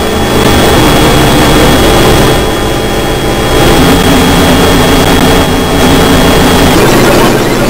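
Dense electronic drone from a Max/MSP multichannel synth patch: many layered oscillator tones sounding together, the low and middle pitches shifting in steps every second or two. A thin high steady tone stops near the end.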